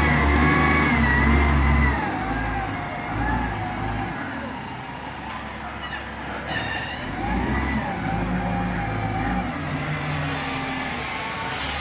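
Bulldozer's heavy diesel engine working, loud for about the first two seconds, then dropping and rising unevenly, with a wavering whine above the engine note.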